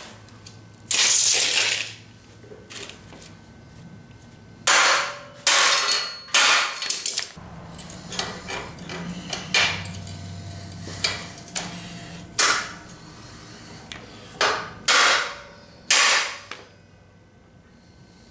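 Hammer strikes and metal clanks on a steel frame rail: about ten sudden knocks in irregular groups, several in quick succession around five to seven seconds in and a few more near the end.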